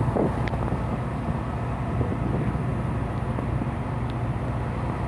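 A boat's engine running steadily with an even low drone.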